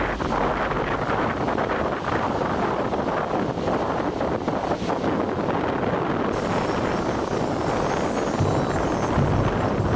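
Wind rushing and buffeting the microphone in a steady roar of noise, with a deeper rumble about eight and a half seconds in.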